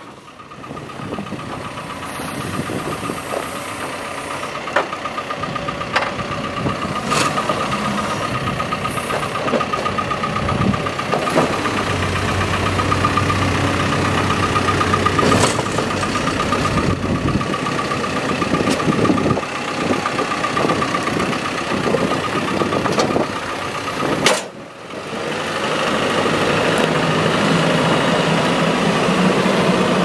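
2013 Caterpillar 420F backhoe loader's diesel engine idling steadily, with a constant high whine over the engine note and a few sharp clicks. After a sudden break about two-thirds of the way through, it runs louder as the backhoe drives.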